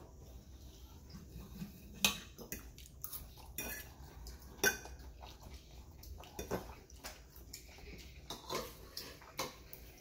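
Steak knife and fork clinking and scraping against a plate while steak and salad are cut: scattered short, sharp clicks every second or so.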